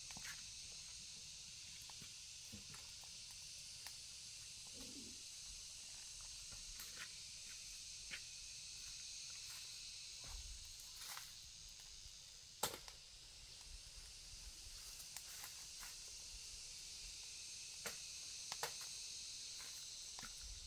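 Faint outdoor ambience of a steady high insect drone, with scattered light clicks and knocks and one sharper knock about halfway through.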